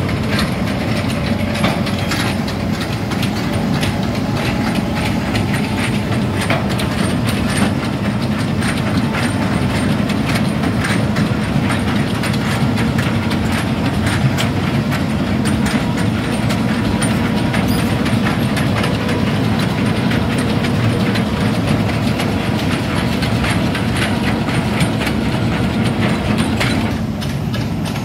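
Hitachi Zaxis 210 amphibious excavator travelling on its pontoon tracks: the diesel engine runs steadily under a continuous clanking and clatter of the steel track chains running around the pontoons. It eases a little near the end as the machine moves past.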